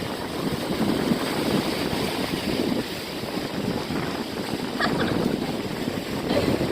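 Ocean surf washing in, with wind buffeting the phone's microphone.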